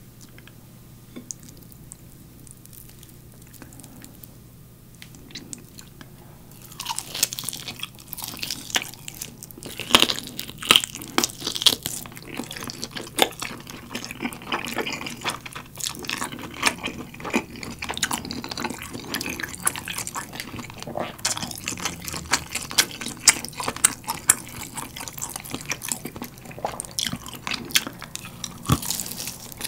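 Close-miked biting, tearing and chewing of a galbi-sauce-glazed roast chicken drumstick: dense sharp crunches and clicks of mouth and meat. They start about six seconds in, after a quieter stretch.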